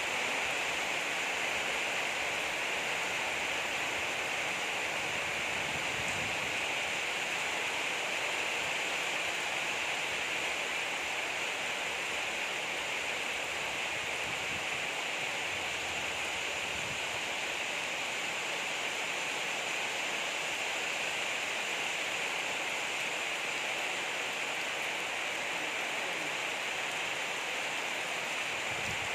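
Steady rain falling, a constant even hiss with no breaks or individual drops standing out.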